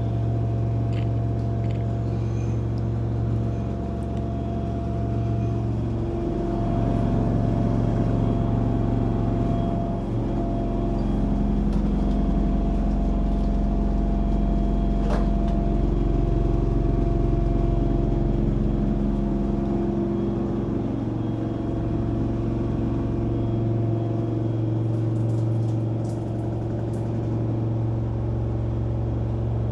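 LG 10 kg front-load washing machine running, its motor giving a steady hum made of several tones that shift in pitch every few seconds as the drum speed changes. This is the motor noise that the owner reports as a fault.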